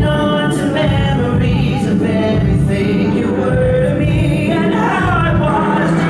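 Male pop vocalist singing live into a handheld microphone over amplified backing music.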